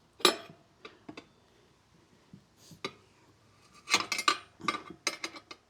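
Metal tire levers clinking and clanking against the motorcycle wheel rim as the tire bead is levered on: one sharp clank just after the start, a few light taps, then a quick run of clinks near the end.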